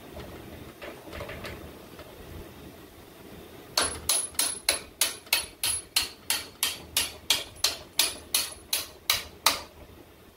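A run of about twenty sharp metallic clicks, evenly spaced at about three a second, starting about four seconds in and stopping near the end: a hand tool working on a steel suspension link bolt and clevis.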